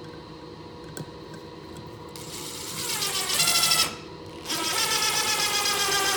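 Cordless US-made Craftsman impact driver running with a whine, rising in pitch as it spins up. It stops briefly about halfway, then runs again at a steady pitch.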